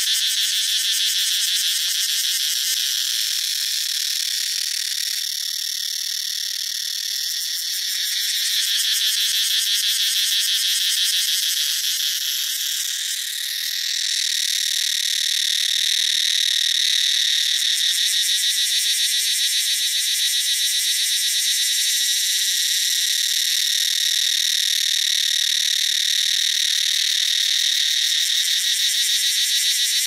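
Cicadas singing: a loud, continuous, shrill buzz with a fast pulsing texture. A little before halfway through, the song dips briefly, then comes back fuller and steadier.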